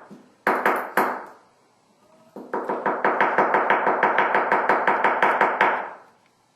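Metal hair stacker with deer hair inside, rapped on the tying bench to even the hair tips: a few single taps, then a fast even run of about six ringing metallic taps a second for some three seconds.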